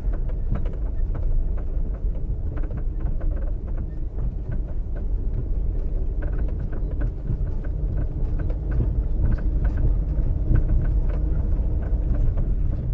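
Dacia Sport's four-cylinder petrol engine running as the car drives slowly, heard inside the cabin, with a steady low rumble and frequent small clicks and rattles as it rolls over cobblestones.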